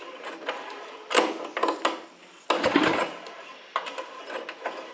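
Irregular clicks and knocks of hands working on a small gasoline engine and its parts, with a few sharper knocks about a second in, two and a half seconds in and near the end.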